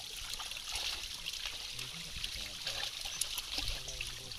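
Many netted fish thrashing and splashing in shallow water, a continuous patter of small splashes as they crowd together, with water splashing from plastic baskets scooping them out.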